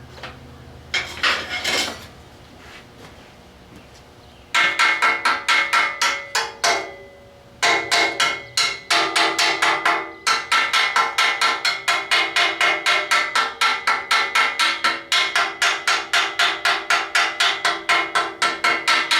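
Hammer striking steel in fast runs of blows, about four or five a second, each blow ringing, with short pauses between runs. A short noisy rasp comes about a second in.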